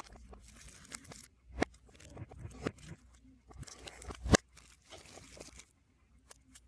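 Album packaging being handled and opened, played in reverse: bursts of plastic and paper rustling broken by sharp clicks, the loudest about four seconds in.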